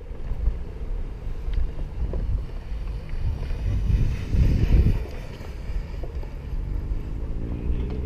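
Skateboard wheels rolling over concrete, a steady low rumble with wind buffeting the microphone, swelling briefly about four seconds in.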